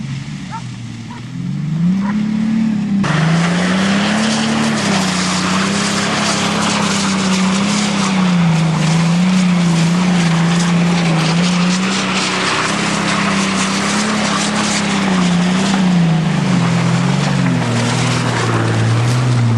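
Old Ford car doing donuts on a field: the engine revs up and down continuously under a steady rush of spinning-tyre and dirt noise that comes in suddenly about three seconds in.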